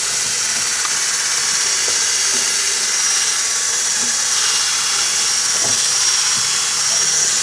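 Cordless drill running steadily, with a continuous high-pitched hiss.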